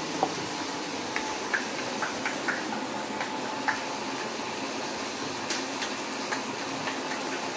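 Light, irregular clinks and taps of a steel spoon and utensils, about one or two a second, over a steady hiss.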